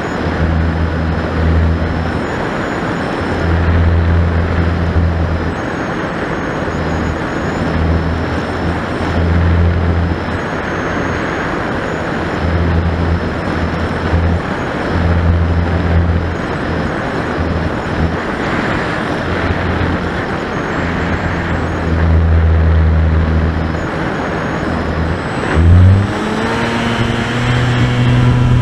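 Rushing airflow over the onboard camera of a Finwing Sabre electric RC plane, with a low hum that cuts in and out every second or two. About 25 seconds in the electric motor spins up: a rising whine that then holds at a steady pitch.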